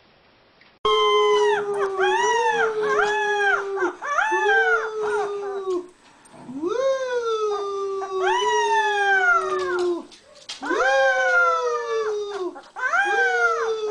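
A puppy howling in long, rising-and-falling notes, with a man howling along with it. The howling starts suddenly about a second in and pauses briefly a few times.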